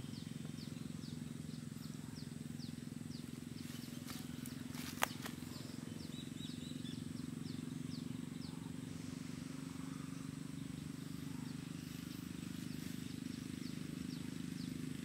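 Diesel locomotive engine running with a low, steady drone as the train approaches slowly. A short high chirp repeats about twice a second over it, and a single sharp click sounds about five seconds in.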